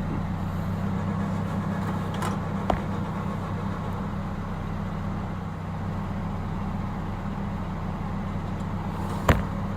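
Car engine idling steadily as a low hum, with a short click a few seconds in and a sharper knock near the end.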